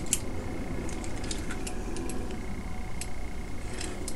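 Scattered light metallic clicks and taps as a steel threaded rod is handled against a C-clamp.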